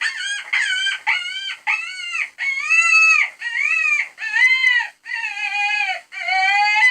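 A rabbit squealing: a quick series of about a dozen loud, high, whining cries, each rising and then falling in pitch. The last one is longer.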